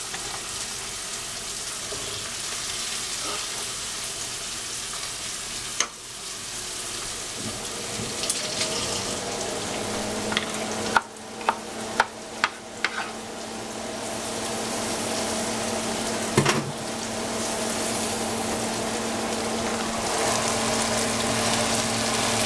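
Broccolini frying with mushrooms in a hot pan, a steady sizzle, while it is stirred: a utensil clicks sharply against the pan a few times, several in quick succession about halfway through.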